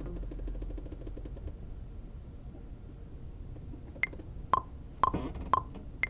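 A music-software metronome clicking at a steady two ticks a second, with a higher-pitched accent click on every fourth beat, starting about four seconds in over a faint low hum.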